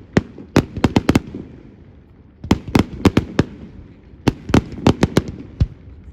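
Fireworks display: three quick clusters of sharp bangs, several a second, each cluster with a gap of about a second before the next, and a low rumbling haze between them.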